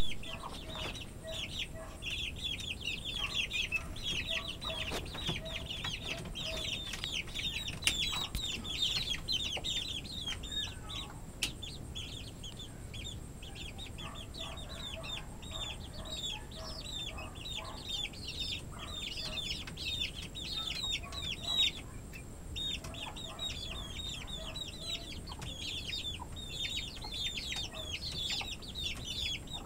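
Chicks peeping rapidly and without pause, short high peeps that drop in pitch, over soft low clucking from the mother hen that comes and goes.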